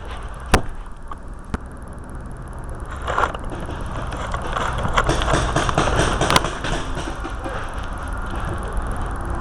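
Two sharp pops, a loud one about half a second in and a fainter one about a second later, typical of paintball shots. They sit over steady rumbling handling and wind noise from a small camera taped to a paintball gun's barrel, with a louder rustling, scraping stretch from about three to seven seconds in.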